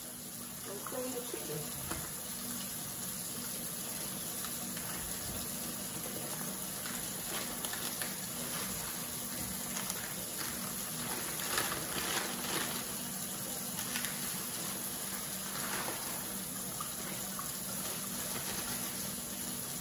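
Kitchen tap running steadily into a sink, with a few light clatters and plastic rustles from handling about halfway through.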